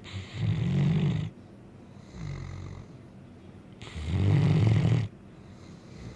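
Great Dane snoring: two loud snores about four seconds apart, each a little over a second long, with a softer breath between them.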